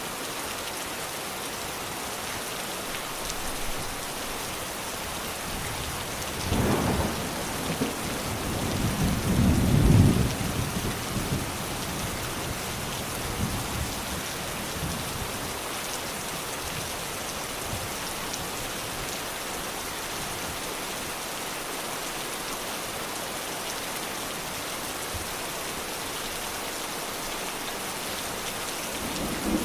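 Steady rain falling, with low rolls of thunder about a quarter of the way in and again, louder, about a third of the way in.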